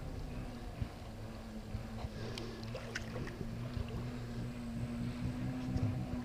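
Low rumble of stream water being stirred as a hand gropes underwater among the roots of an undercut bank, with a steady low hum and a few faint clicks about two to three seconds in.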